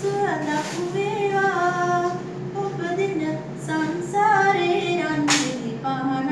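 A woman singing solo and unaccompanied, with long held notes that slide from one pitch to the next.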